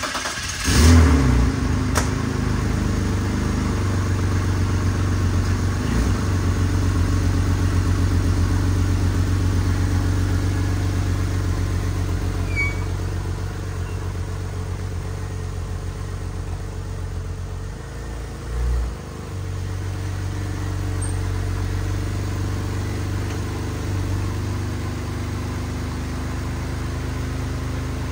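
BMW X3's straight-six engine catching with a brief rev about a second in, then running steadily at idle, easing slightly lower after the first few seconds. It is the first start after an oil change, left running before the oil level is checked. There is a short low thump about two-thirds of the way through.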